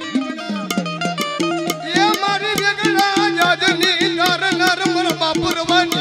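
Indian folk devotional music: a drum beating a steady rhythm under a wavering, ornamented melody line over a sustained low drone.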